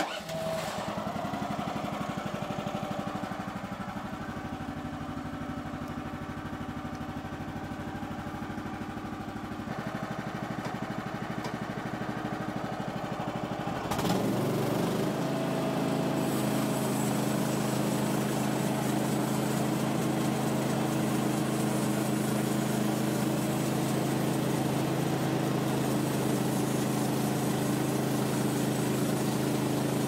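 Gas engine of a Woodland Mills HM130 Max portable band sawmill. It comes on suddenly, runs at a low idle, then throttles up to a louder, steady higher speed about 14 seconds in.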